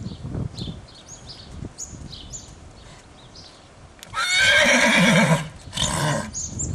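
A horse whinnying loudly for over a second about four seconds in, then a shorter call, over the dull, regular thuds of a horse trotting on sand footing. Birds chirp throughout.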